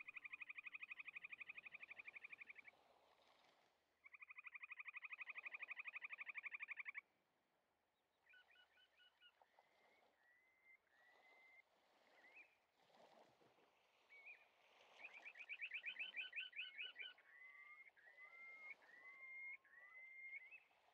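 Faint songbird song: two long, rapid trills, then a run of short upswept chirps broken by another fast trill.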